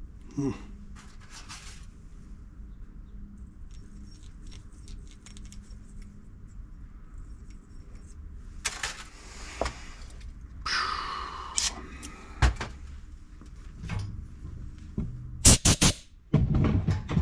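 Small-engine carburetor being handled and reassembled by hand: scattered light clicks and taps of its parts, a short hiss past the middle, and a few sharp knocks near the end.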